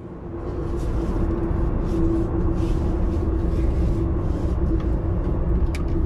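Car cabin noise heard from inside while the car is moving: a steady low rumble of engine and road, with a steady mid-pitched hum over it.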